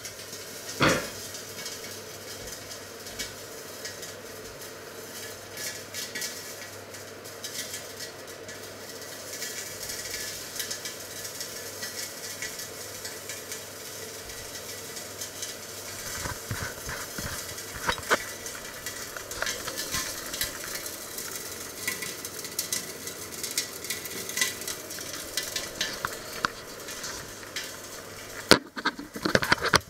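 Chicken frying in oil inside a lidded enamelled cast-iron casserole: a steady sizzle with scattered crackles and spits. A single knock about a second in, and a burst of handling knocks near the end as the camera is moved.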